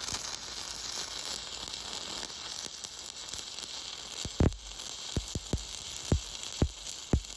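Stick-welding arc burning a 7018 electrode along a steel plate in the flat position: a steady frying hiss, with a handful of sharp pops in the second half.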